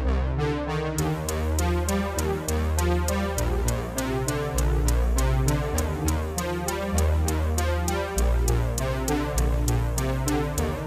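Electronic background music: synthesizer over a steady, even beat with a deep bass line.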